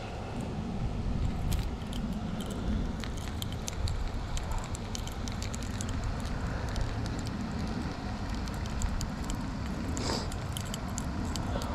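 Metal treble hooks and a hard plastic crankbait clicking and jingling as they are worked out of a fish's mouth by hand, many small irregular clicks over a low steady rumble.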